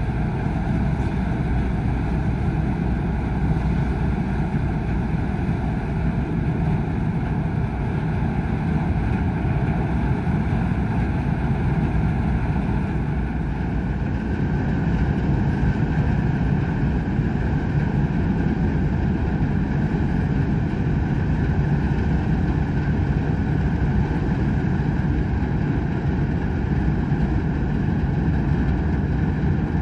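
Cruise ship's engines and machinery running with a steady deep rumble and a steady hum over it, as the ship leaves the quay. A little louder from about halfway through.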